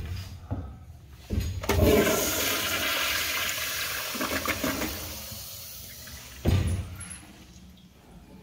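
A commercial toilet's flushometer valve flushing: a loud rush of water starts over a second in and dies away over about four seconds. A thump sounds about six and a half seconds in.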